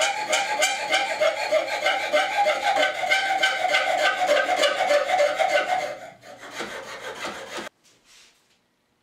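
Coping saw cutting through split bamboo strips clamped to a bench: a fast, rhythmic rasping back-and-forth for about six seconds, then a few scattered scrapes before the sound stops abruptly.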